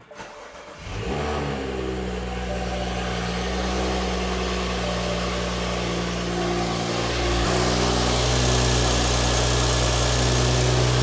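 BMW N55 turbocharged inline-six engine starting about a second in, then idling steadily. The tone of the idle shifts and gets slightly louder about seven seconds in.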